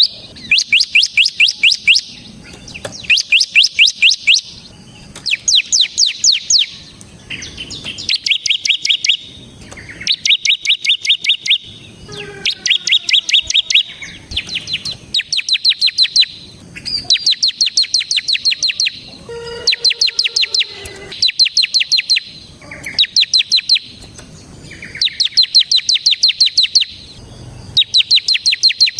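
Bar-winged prinia (ciblek) singing vigorously: rapid trilled phrases of high sweeping notes, each a second or two long, repeated every couple of seconds.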